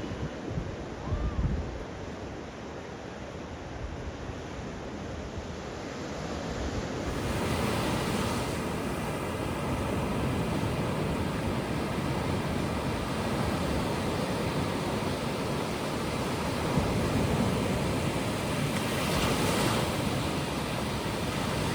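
Ocean surf breaking and washing up on a beach, with wind rumbling on the microphone. At about seven seconds the surf becomes louder and hissier.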